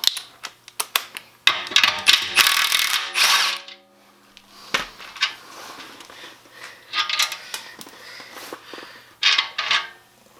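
Small 1/4-inch impact gun run in reverse for about two seconds, then winding down, backing off the nut of a stud-pulling tool from a freshly seated wheel stud. Metal clicks and clinks of the nut, washers and tool sound around it, with two shorter bursts later.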